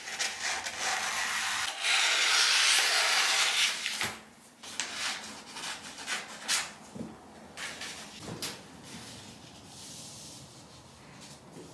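Sheets of newspaper flyers rustling and being cut with scissors: a dense, loud rustle for the first few seconds, then scattered short crackles of paper being handled.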